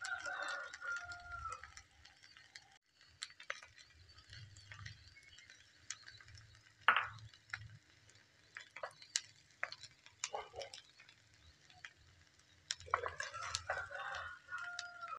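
Metal spatula stirring and scraping fried rice in a frying pan, with scattered clicks of metal on the pan. A rooster crows at the start and again near the end.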